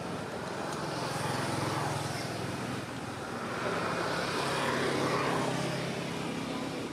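A motor engine droning, with a steady low hum that swells twice.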